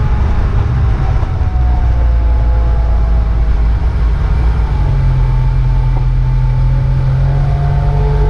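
Small boat's motor running steadily under way, loud and constant, with its engine note shifting about halfway through.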